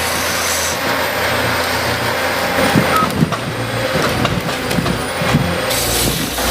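Heavy machinery running, with several knocks in the middle.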